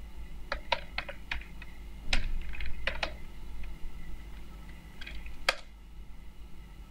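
Computer keyboard typing: scattered, irregular keystrokes with short pauses between them.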